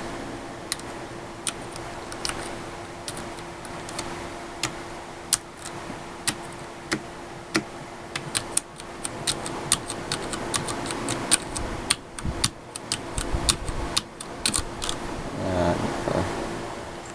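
Separate key presses on a Ducky Shine 3 mechanical keyboard with Cherry MX Brown switches: sharp clicks spaced irregularly, about one every half second to a second, coming faster in the middle.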